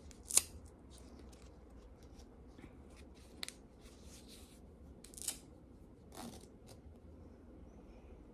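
Faint handling sounds of an Apple Watch and its woven band being fitted around a wrist: quiet rustling with a few light clicks, the sharpest about half a second in.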